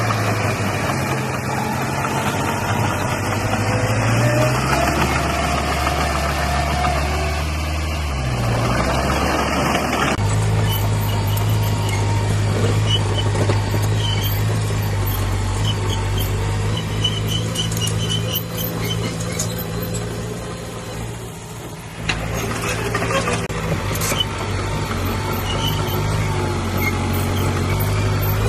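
Heavy diesel engines of earthmoving machinery running and changing pitch under load. The sound shifts abruptly about ten seconds in and again a little past twenty seconds, and a few sharp knocks come soon after the second change.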